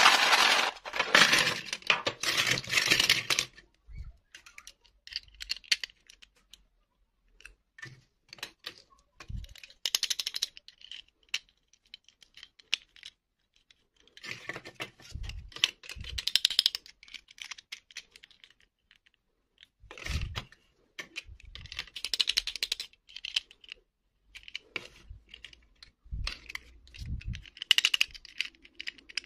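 Small plastic princess dolls and their loose plastic dresses rattling and clattering in a clear plastic box as they are tipped out, loudest for about the first three and a half seconds. After that come scattered plastic clicks and taps as the figures and dresses are picked up and set down on a table.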